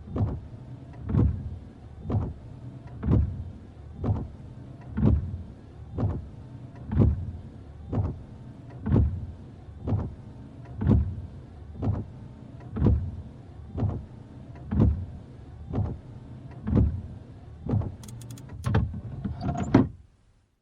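Car windshield wipers sweeping back and forth, about one stroke a second, the motor and blades swelling with each pass. Near the end come a few sharp clicks and a rising sound, then it cuts off suddenly.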